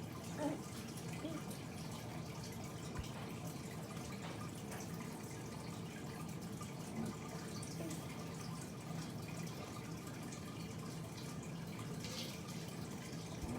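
Steady background hiss and low hum in a small room, with a few faint soft knocks and handling sounds, the first about half a second in.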